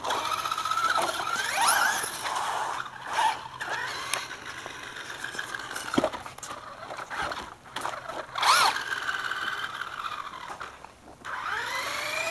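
Electric Traxxas RC car's motor whining, its pitch rising and falling as the car speeds up and slows, with a few sharp knocks.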